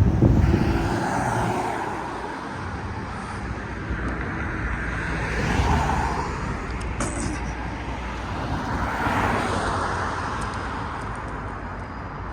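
Road traffic on a city street: cars passing by one after another, their tyre and engine noise swelling and fading about three times, loudest near the start.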